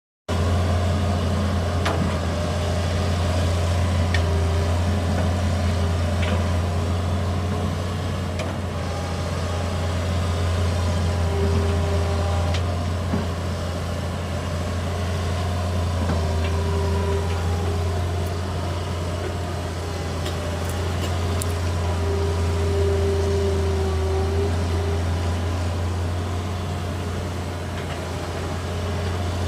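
Hitachi excavator's diesel engine running steadily with a deep, even hum, and a faint higher whine that comes and goes several times.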